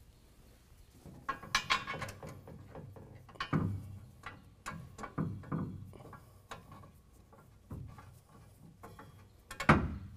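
Irregular metallic clinks and knocks as bolts are hand-threaded into the loose fastener blocks inside the truck's frame rail to hold the gooseneck hitch, with one sharp knock near the end.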